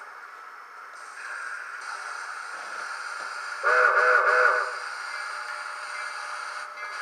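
Soundtraxx Tsunami2 sound decoder in an HO scale brass steam locomotive playing a steam whistle: one blast about a second long, a little over halfway through, over a steady hiss of the decoder's idling sounds.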